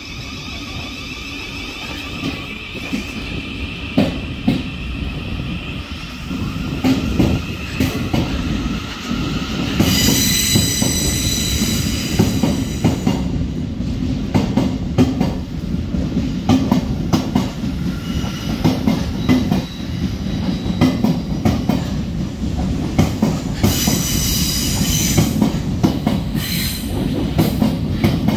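Thameslink Class 700 electric multiple unit running on the track, with a steady low rumble and frequent clicking of wheels over rail joints. A faint high whine runs through the first ten seconds, and the wheels squeal twice, about ten seconds in and again near the end.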